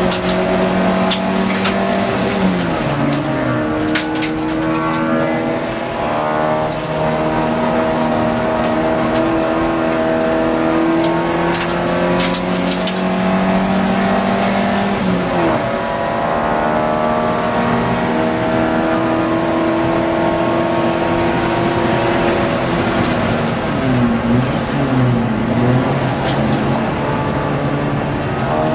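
Ford Fiesta XR2 race car's four-cylinder engine heard from inside the cabin, running hard at high revs with its pitch dropping and climbing again several times through gear changes, twice in quick succession near the end. A few sharp ticks cut in now and then.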